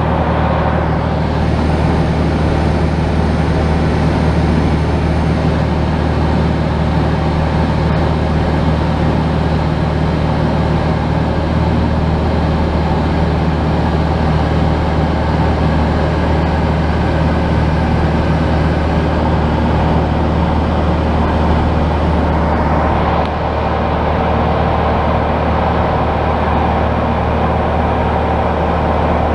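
Light aircraft's piston engine and propeller droning steadily in the cabin in flight, a constant low hum with a wash of wind and engine noise over it.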